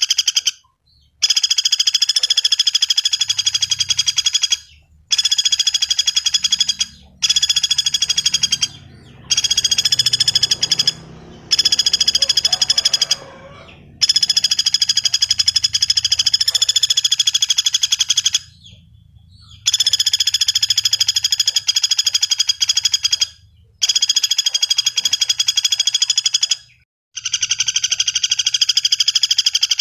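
Common flameback woodpecker (pelatuk bawang) calling: long, fast rattling trills of one to four seconds each, repeated again and again with short pauses between them.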